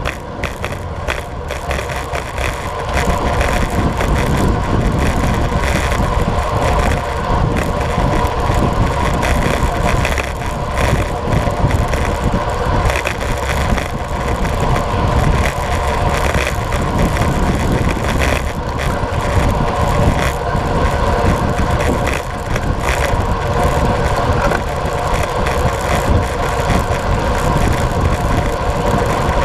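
Steady rush of wind on the microphone of a camera riding on a road bike at about 50 km/h, with the tyres humming on asphalt underneath.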